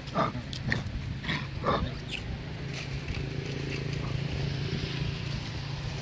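Macaque monkeys calling: four short, sharp pitched calls within the first two seconds. A steady low hum sets in around halfway through.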